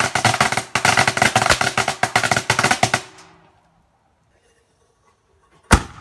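A string of firecrackers going off in a rapid, irregular crackle of sharp pops, which dies away about halfway through. After a short lull, a single loud bang near the end.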